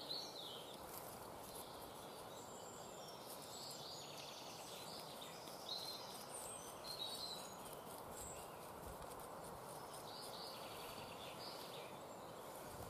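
Quiet woodland ambience with a bird calling briefly now and then, and faint rustling of sisal fibres being teased apart by hand.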